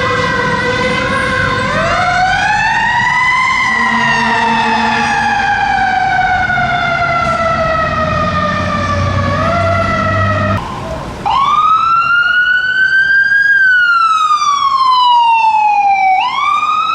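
An emergency vehicle siren sounding a slow wail: its pitch rises over about two seconds, falls slowly for several more, breaks off briefly about ten and a half seconds in, then returns louder, rising, falling and rising again. A low rumble runs beneath it in the first part.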